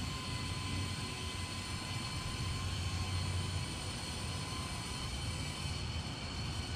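Compressed air from an 8-gallon Husky compressor's tank flowing through the regulator and hose into a light truck tire: a steady hiss with a faint high whistle, the tank draining as the tire inflates.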